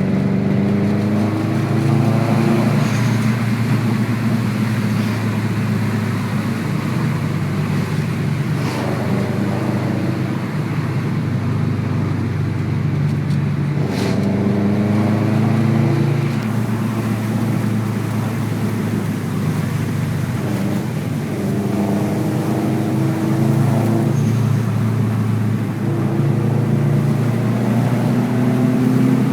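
Turbocharged Subaru WRX flat-four engine driving under way. Its note climbs under acceleration and drops back several times as it shifts through the gears.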